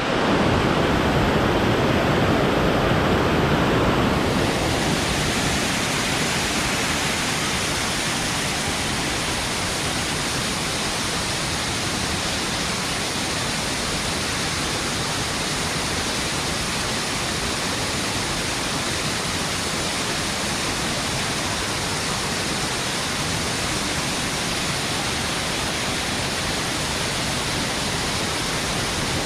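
Waterfall rushing steadily into its pool: a continuous, even roar of falling water that gets brighter and hissier about four seconds in.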